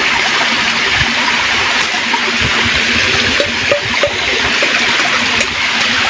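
Creek water running over rocks: a steady hiss with small gurgles and splashes scattered through it.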